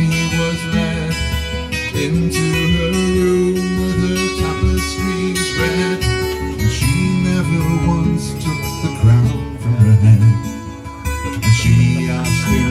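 Acoustic guitar strummed and picked in a live performance, playing a steady run of chords.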